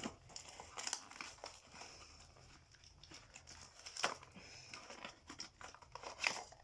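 Packaging of a smart light bulb being torn and crinkled open by hand: scattered rustles with a few sharp crackles.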